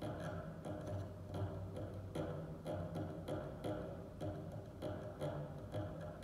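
Four bass viols da gamba playing low held bowed notes, with a regular sharp click about twice a second over them.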